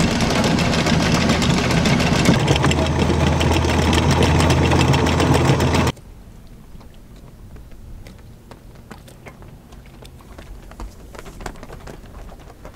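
Electric anchor windlass hauling in the anchor chain: a steady motor hum under a fast, continuous clatter of chain links, which stops abruptly about six seconds in. Afterwards only a faint rush of wind and water remains.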